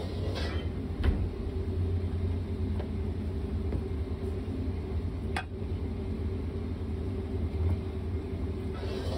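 A steady low rumble with a faint hum, broken by two sharp clicks: one about a second in and one just past the middle.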